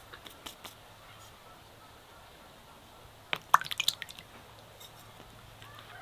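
Eggs being cracked into a well of flour in a metal bowl: a few light taps near the start, then a quick run of sharp cracking clicks about halfway through.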